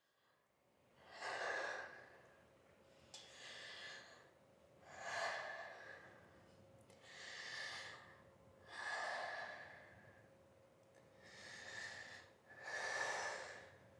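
Slow breathing in and out, one breath about every two seconds. Each breath swells and fades softly.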